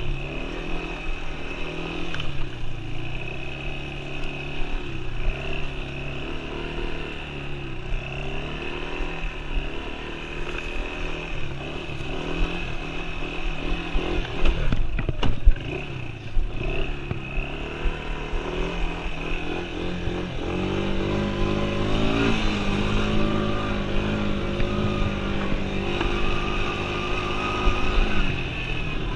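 Yamaha Breeze 125 ATV's single-cylinder four-stroke engine running under way, its revs rising and falling as the quad is ridden, with a few sharp knocks about halfway through. The engine pitch climbs and holds higher for the last third.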